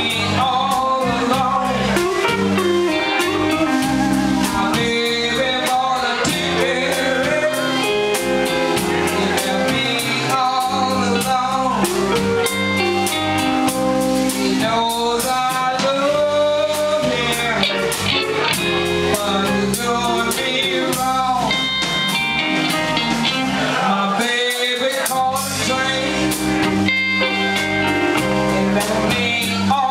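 Live blues band playing: a woman singing lead over hollow-body electric guitar, electric bass and drum kit.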